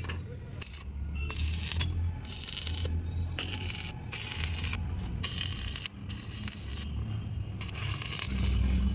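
Repeated rough scraping strokes, irregularly spaced and each under a second long, over a steady low hum.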